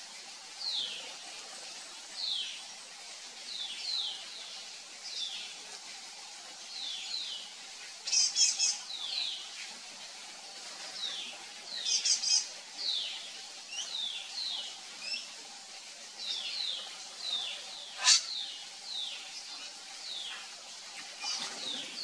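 Drongo calling: a run of short, falling whistled notes, one or two a second, broken twice by quick, high rattling trills. There is one sharp click late on.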